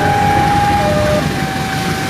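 Diesel-electric locomotive (Indonesian CC 204) running as it approaches, a low engine rumble, with a steady high tone in the background that switches between two pitches.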